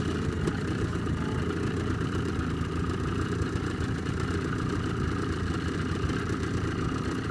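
Boat's outboard motor running steadily at low speed.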